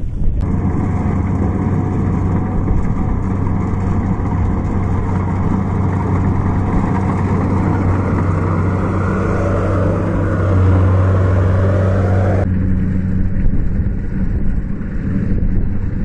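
Kubota DC70 rice combine harvester running steadily: a low diesel hum with a noisy rush of its cutting and threshing machinery above it. The higher rush cuts off abruptly about twelve seconds in, leaving the low hum.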